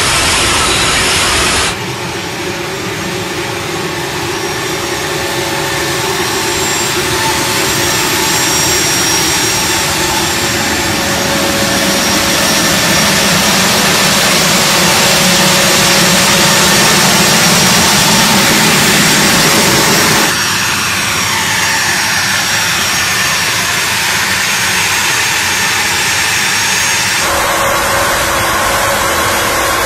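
Jet engines of an A-10 Thunderbolt II, its two General Electric TF34 turbofans, running on the ground: a loud, steady rush with a high turbine whine. The sound changes abruptly a few times, as if from shots edited together.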